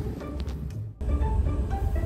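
Background music of short, separate notes over a low rumble, dipping briefly and cutting back in abruptly about a second in.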